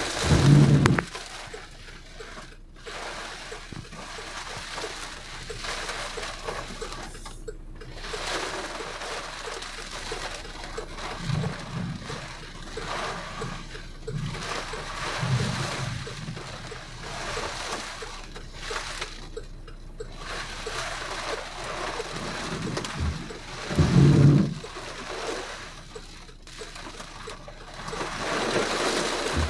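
Heavy rain pouring down and splashing on window glass and the street, with a few short low rumbles of wind gusts, the loudest about 24 seconds in.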